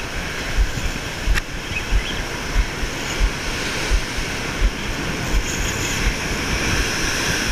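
Ocean surf breaking and washing against the rocks, with wind on the microphone, and a short low thump repeating about every two-thirds of a second.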